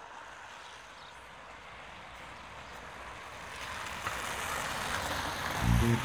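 A rushing noise, like traffic or a passing aircraft, swelling steadily louder through the second half. Near the end the song comes in with a bass line.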